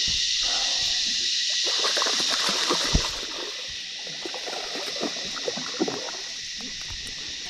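Water splashing and sloshing as a hooked trevally is fought up to the boat, with one sharp knock about three seconds in. A loud, high insect chorus runs underneath and drops in level about three seconds in.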